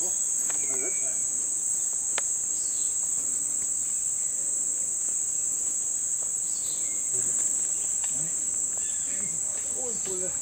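Continuous high-pitched shrill drone of tropical rainforest insects, holding one steady pitch without a break.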